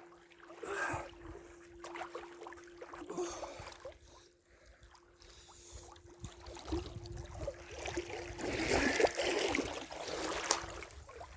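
Lake water sloshing and splashing as a person moves through it during a cold-water swim. The splashing is irregular and grows louder from about six seconds in.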